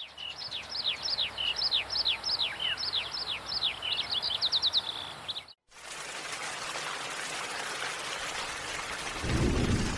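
A songbird singing a run of quick down-slurred whistled notes, ending in a fast trill. Then a sudden cut, and steady rain starts, with a low rumble of thunder near the end.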